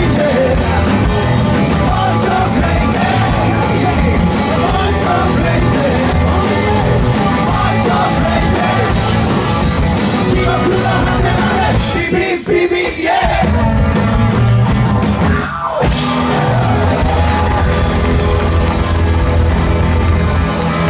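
Live rock and roll band playing loud: electric guitars, drum kit and a lead vocal. The music drops out briefly twice, about twelve and fifteen and a half seconds in.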